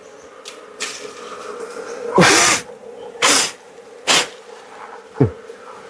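Someone blowing four sharp puffs of breath to drive honeybees aside, over the steady hum of bees on the open hive.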